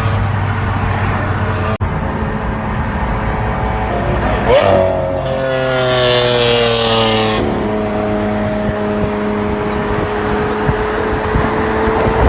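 Lamborghini Aventador SV's naturally aspirated V12 through a Capristo exhaust, running steadily, then revving up sharply about four and a half seconds in. A loud rush follows as the engine pitch slides down, and it settles back to a steady drone.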